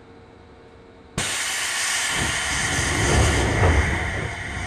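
Door engines of a Seibu 3000 series train car hissing loudly as they release air about a second in, with the sliding doors moving shut and low thuds under the hiss.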